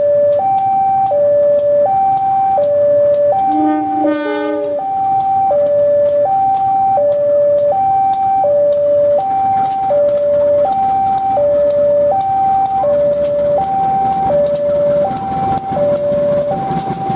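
Railway level-crossing warning alarm sounding a steady two-tone alternation, switching about every 0.7 seconds, with a brief separate tone about four seconds in. Near the end the rumble of a KAI CC 203 diesel locomotive grows louder as it passes the crossing.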